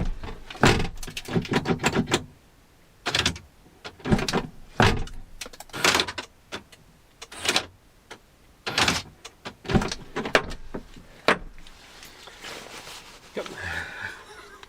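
Land Rover Discovery 2 rear door being worked by hand to test a newly fitted lock mechanism: a series of irregular clicks and clunks from the latch and handle.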